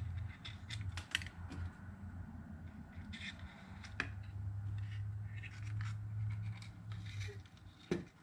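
Light clicks, taps and scrapes of a speaker crossover circuit board and its components being handled on a glass tabletop, with a few sharper clicks about a second in, at about four seconds and near the end. A low hum comes and goes underneath and drops away near the end.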